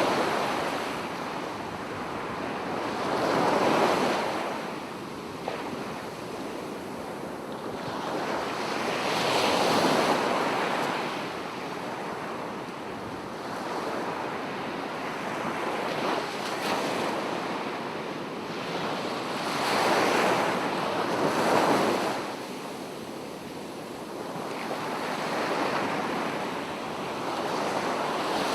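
Small waves of a calm sea lapping on the shore, each wash swelling up and fading away every four to six seconds.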